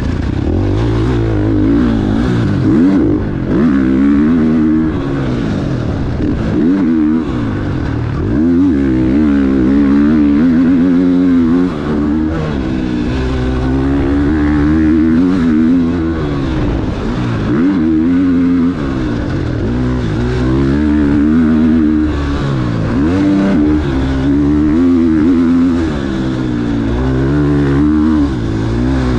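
KTM 450 SX-F's single-cylinder four-stroke engine ridden hard on a motocross track, the revs climbing and dropping again and again as the throttle is opened and closed, heard on board from a helmet-mounted camera.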